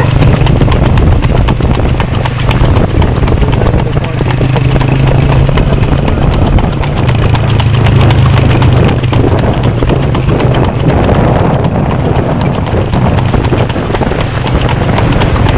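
A cart horse's hooves clip-clopping on asphalt at a fast, steady trot, over a continuous low drone.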